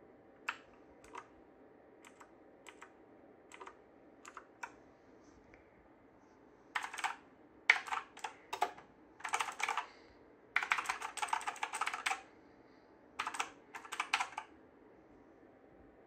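Keys of a Havit HV-KB378L mechanical keyboard being pressed: a handful of single clicks spaced apart at first, then, about halfway through, several short bursts of rapid key presses clattering together.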